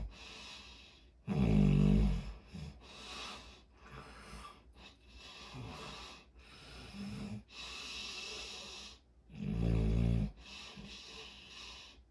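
Snoring: two loud, low snores about eight seconds apart, with softer breaths between them.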